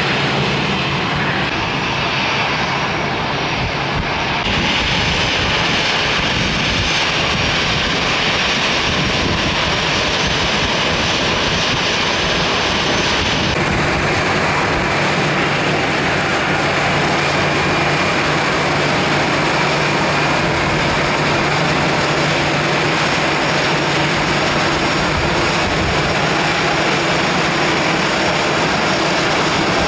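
Airliner engines running loud and steady at close range, a continuous rushing noise over a constant low hum. The high hiss changes abruptly twice.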